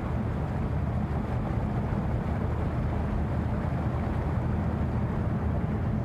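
A steady low engine drone with a constant rumble, unchanging throughout.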